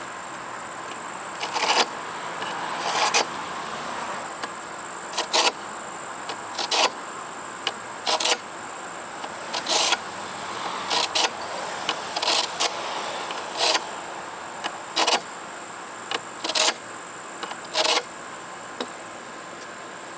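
Carbide cutter of a SharpPal handheld sharpener drawn along the edge of a rusty steel lawnmower blade held in a vise: about a dozen short scrapes, one roughly every second and a half.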